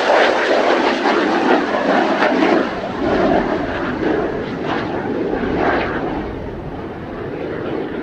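Kawasaki T-4 jet trainer's twin F3 turbofan engines at power as it climbs away just after lift-off: a loud jet roar that gradually fades as the aircraft moves off.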